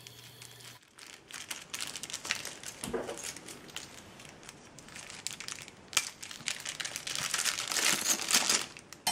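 Thin plastic bag crinkling while it is handled, a small bag of metal mounting screws turned over in the fingers, with a louder stretch of crinkling near the end.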